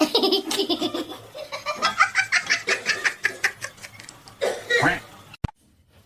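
A person laughing hard in rapid repeated bursts, then a short breathy sound about four and a half seconds in and a sharp click near the end.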